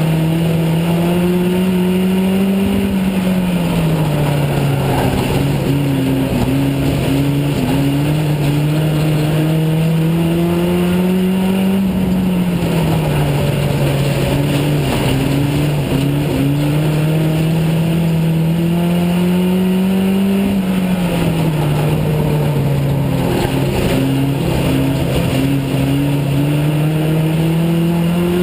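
Dirt-track race car's engine heard from inside the cockpit under racing load. Its pitch climbs along each straight and drops off into each turn, repeating about every eight to nine seconds, lap after lap.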